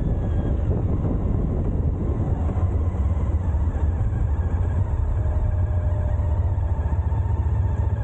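A vehicle running steadily, with a constant low rumble and faint steady tones above it.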